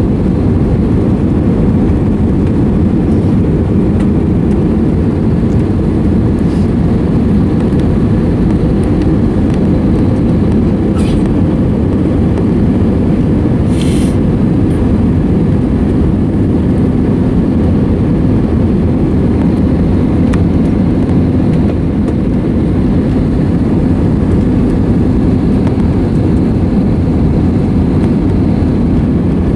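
Steady cabin roar of an Airbus A320neo in flight, heard from a window seat: low engine and airflow noise with a faint steady hum. Two brief faint hisses come partway through.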